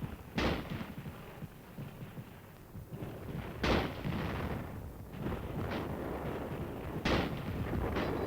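Scattered single gunshots a few seconds apart, each with a long echoing tail, over a low continuous rumble of battle noise.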